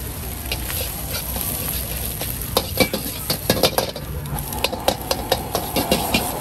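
Stir-frying in an iron wok: food sizzling while a long-handled metal ladle scrapes and tosses it. From about two and a half seconds in, the ladle clanks sharply and irregularly against the wok.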